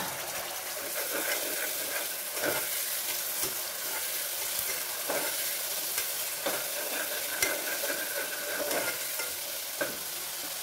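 Onions and ginger-garlic paste sizzling in hot oil in a pressure cooker, stirred with a perforated steel ladle that scrapes and clicks against the pot every second or so.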